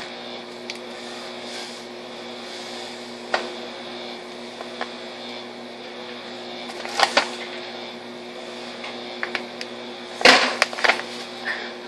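A steady low electrical hum under a few scattered knocks and rustles as a paper bag of sugar is handled and tipped over a plastic pitcher; the loudest, a short rustling burst, comes about ten seconds in.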